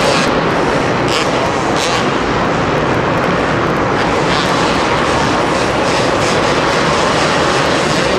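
Two-stroke supercross motorcycles running on the track, a loud continuous engine drone that carries on without a break.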